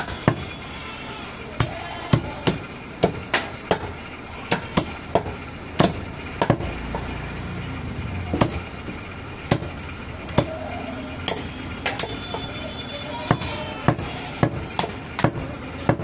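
Butcher's cleaver chopping mutton: a run of sharp chops, irregular, about one or two a second, with a short pause in the middle.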